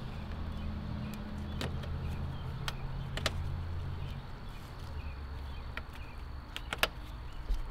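Plastic push-in trim clips snapping into the bumper and grille panels: about six sharp clicks at irregular intervals, the strongest near the middle and near the end. A steady low hum sits under them.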